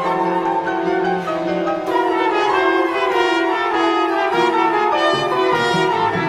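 Orchestral music with brass instruments carrying a melody over held chords.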